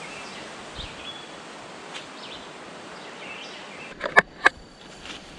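Steady creekside outdoor ambience with a few short bird chirps. About four seconds in come two sharp clicks a moment apart as the camera is picked up and handled.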